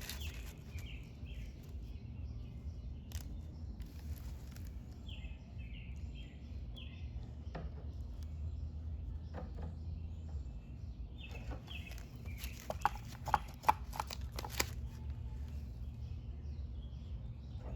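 Small birds chirping in short repeated calls over a steady low hum, with a quick cluster of sharp taps or clicks a little past the middle.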